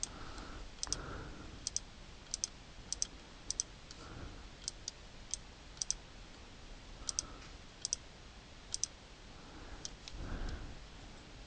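Computer mouse clicking repeatedly over a faint background hiss, each click a pair of quick ticks, a bit over one a second at uneven intervals.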